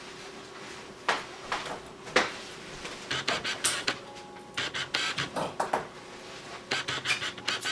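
Grooming scissors snipping through a terrier's coat in a run of sharp, irregular snips, starting about a second in, as the trim is finished off.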